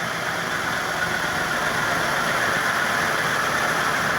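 1985 Novelli Tókio commercial ceiling fan running steadily at high speed: a steady low hum under a rush of air from the blades. It is noisy because its 6203 ball bearings, the lower one above all, are worn and half-seized.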